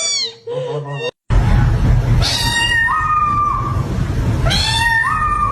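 Kitten meowing twice, each a long call that steps up in pitch partway through. Under the calls runs a loud steady low rumble.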